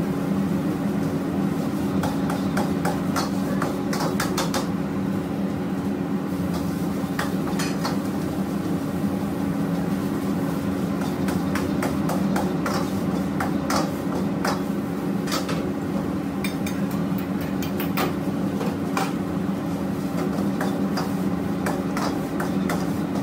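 A metal ladle clanking and scraping against a steel wok during stir-frying, with many sharp, irregular knocks, over a steady low kitchen hum.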